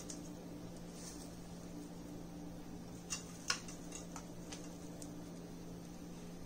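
Crispy fried onions sprinkled by hand onto marinated chicken in an aluminium foil tray: a few faint ticks and rustles, the two clearest about three and three and a half seconds in, over a steady low hum.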